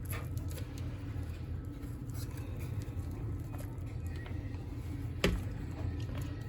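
Light plastic clicks and scrapes from prying apart the clipped plastic shell of a Squawkers McCaw toy parrot, with one sharp click about five seconds in, over a steady low hum.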